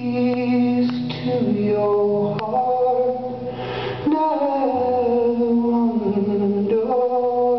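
Live solo acoustic performance: a man singing long held notes that step down in pitch, over a strummed acoustic guitar.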